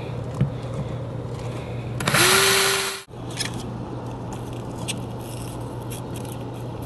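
A power drill runs for about a second, its motor pitch rising briefly and then holding steady, as a hole is drilled through the RV wall for the awning's cable. The rest is quiet handling noise with a few light clicks as wires are fed along the awning arm, over a low steady hum.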